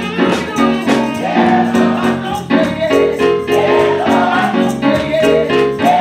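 Two women singing a gospel song through microphones and the PA, over keyboard accompaniment and a steady percussion beat.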